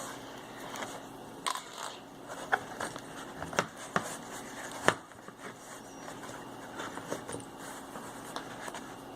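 Stitching awl and waxed thread working leather by hand: irregular sharp clicks and scrapes as the awl pierces the leather and the thread is pulled through and tensioned, the loudest click about five seconds in.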